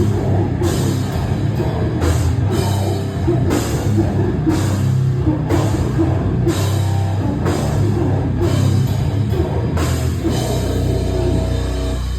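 Hardcore punk band playing live, loud, with drum kit and crash cymbals hitting about once a second. About ten seconds in, the drums drop out, leaving a held low note ringing.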